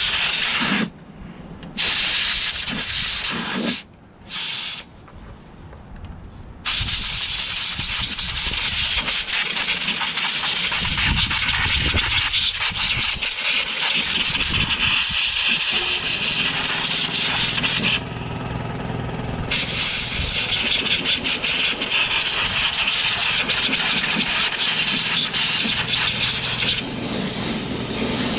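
Compressed-air blow gun blasting debris out of a lawnmower engine's auto-choke and primer area: a few short hissing bursts of air, then one long, nearly unbroken blast that dips briefly about two-thirds of the way through and stops near the end.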